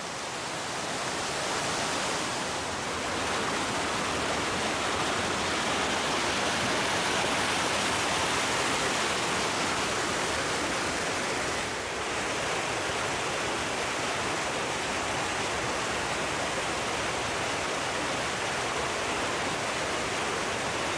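Steady rush of falling and cascading water from a waterfall and its rocky stream, dipping briefly about twelve seconds in.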